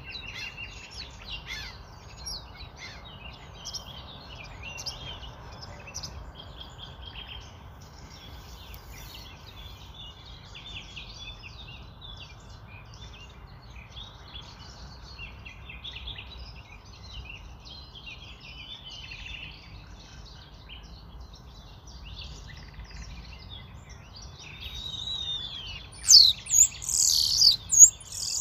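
Birds chirping: many short, overlapping calls continue throughout, with a few louder, sharper whistled calls near the end, over a low steady background noise.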